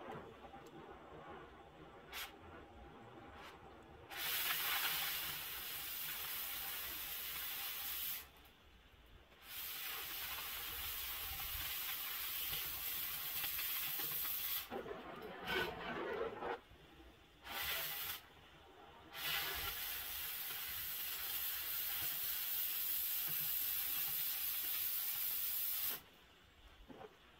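Oxy-fuel cutting torch cutting through steel pipe: a steady rushing hiss of the cutting-oxygen jet. It starts about four seconds in and is broken by brief pauses, once near eight seconds and a few times between fifteen and nineteen seconds, where only the quieter preheat flame is left. It stops about a second before the end.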